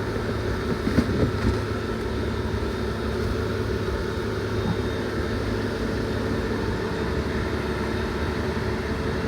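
Steady low mechanical hum in a truck cab, with a few short knocks and clicks about a second in.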